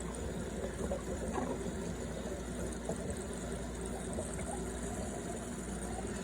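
Homemade bottling machine filling bottles: a steady sound of liquid running in over a constant low machine hum, with a few faint ticks.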